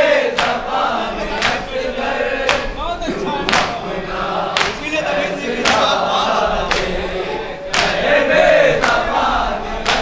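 A group of men chanting a noha chorus together, with the sharp slaps of matam, hands striking chests in unison, about once a second.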